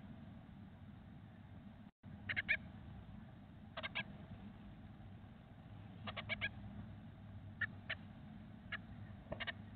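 Blue tit nestlings begging, short faint cheeps in small clusters of one to four as the parent feeds them, over a low steady hum.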